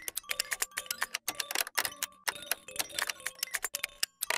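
Rapid, irregular clacking of typewriter keys, about seven key strikes a second.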